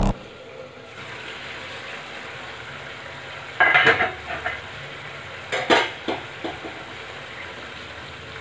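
Chole batani curry simmering in a steel pot with a steady low hiss. About three and a half seconds in, the metal lid clatters as it is lifted off. Around six seconds in, a ladle knocks and scrapes against the pot as the curry is stirred.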